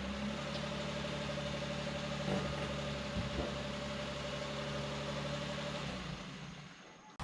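Suzuki Every van's small three-cylinder engine idling steadily, dying away near the end.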